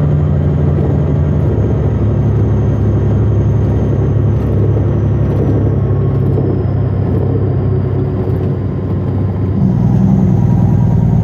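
Western Star logging truck's diesel engine pulling a load of logs, a steady low drone. About nine and a half seconds in, its pitch steps up a little and it gets slightly louder.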